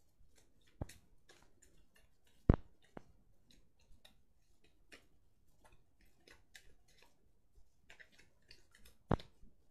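Deck of playing cards being handled in a card flourish: scattered light clicks and snaps of the cards, with a few sharp knocks, the loudest about two and a half seconds in.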